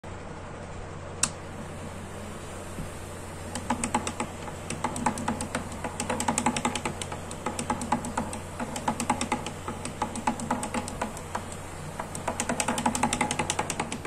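A rocker switch clicks once about a second in, then a small homemade table fan driven by a 4-volt DC motor runs with a low steady hum. From about three and a half seconds on, rapid irregular ticking and rattling comes from the fan as it is picked up and tilted.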